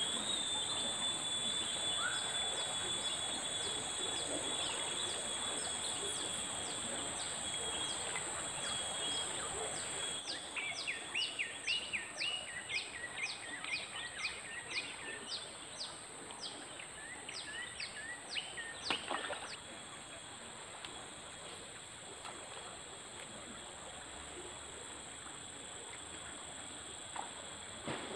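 Insects shrilling steadily at a high pitch over the hiss of the flowing river, while a bird gives a fast run of repeated descending whistled notes, about three a second, for some nine seconds in the middle before stopping abruptly.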